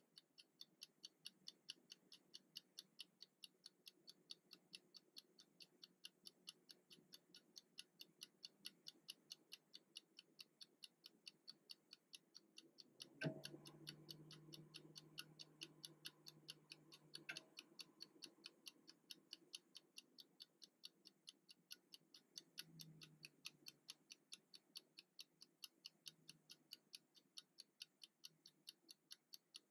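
Wind-up mechanical kitchen timer ticking faintly and evenly, about four ticks a second, as its clockwork counts down. About a third of the way in a single knock is heard, followed by a low hum for about four seconds.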